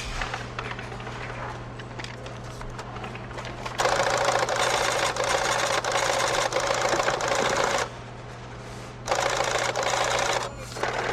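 Cash register receipt printer chattering as it prints, in two runs: about four seconds long starting a few seconds in, then after a short pause about a second and a half more. Before it, checkout counter background with small clicks and handling noises over a steady low hum.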